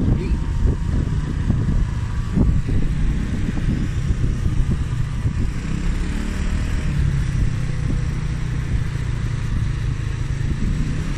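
Motor scooter engine running steadily while riding along, with a dense low rumble.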